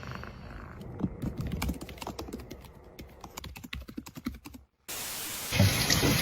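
Rapid, irregular clicks and taps for a few seconds, then a brief cut to silence and a steady hiss that grows louder near the end.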